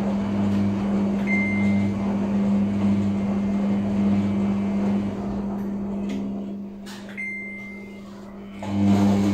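Samsung front-loading washing machine on its wash cycle: the motor hums steadily as the drum turns the wet, sudsy laundry through the water. The drum stops about five and a half seconds in, leaving a lower hum, and starts turning again near the end.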